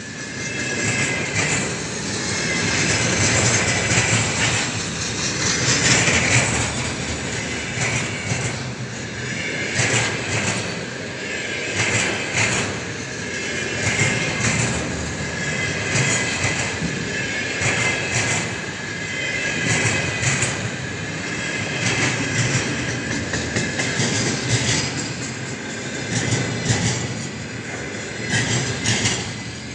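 Container freight train of flatcars loaded with shipping containers rolling past: a continuous rumble and rush of steel wheels on rail, with repeated clacks of wheelsets over the rail joints and a steady high-pitched wheel squeal above it.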